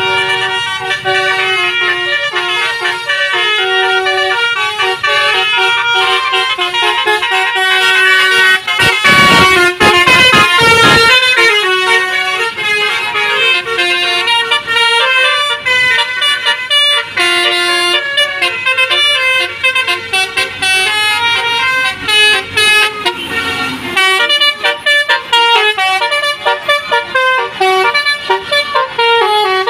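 Bus 'telolet' horn: a set of musical air horns playing a tune of stepping notes, again and again. About nine seconds in a loud low rumble rises and passes, and near the end the notes come as short, rapid toots.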